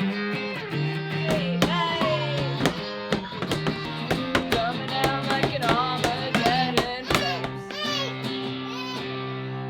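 Background music: plucked and strummed guitar over steady held bass notes.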